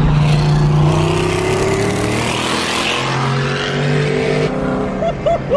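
Twin-turbo LS3 V8 accelerating hard, its pitch rising steadily for about four seconds before easing off, heard from inside a following car.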